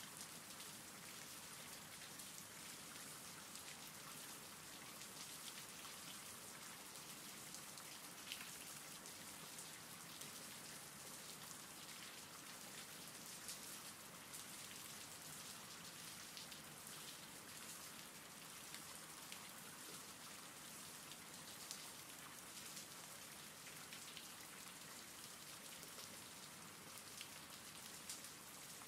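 Faint steady rain: an even hiss with scattered individual drops.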